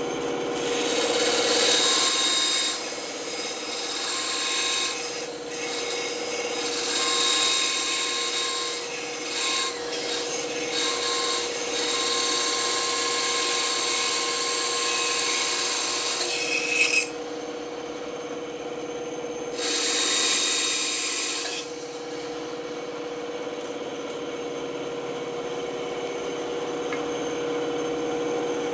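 Band saw blade cutting through wood over the steady hum of the running saw, the cutting noise swelling and easing through one long cut. The cutting stops, comes back for a short second cut, then the saw runs on without cutting near the end. The blade is one the owner thinks might be getting dull.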